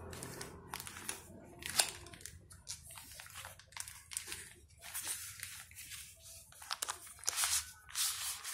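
Clear plastic wrapping and foil sachets crinkling and rustling as they are handled and pulled out of a cardboard packet: irregular crackles, louder toward the end.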